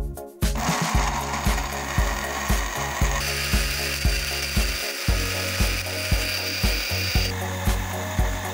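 Electric blender switched on about half a second in, its motor running and grinding chilies, shallots and garlic with a little oil into a spice paste. The sound of the motor shifts about three seconds in and again near the end. Background music with a steady beat runs underneath.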